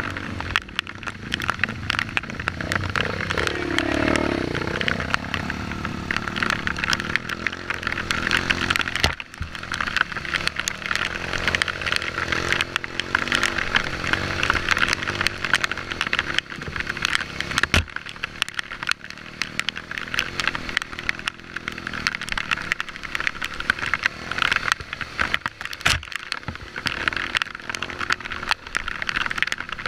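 Dirt bike engine running as it is ridden over a rough, muddy trail, the pitch rising and falling with the throttle, under dense clicking and rattling from the ride. Sharp knocks come about nine seconds in and again about eighteen seconds in.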